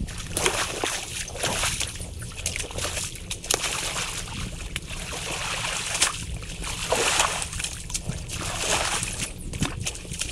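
Creek water splashing and sloshing in irregular bursts as sticks and mud are raked out of a beaver dam.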